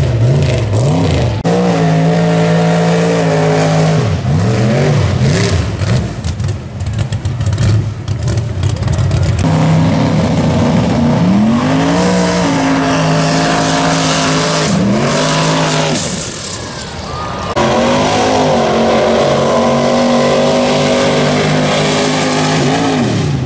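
Mud bog trucks' engines revving hard as they power through the mud pit. The pitch climbs and drops again and again as the throttle is worked, with a short quieter spell about two-thirds of the way in.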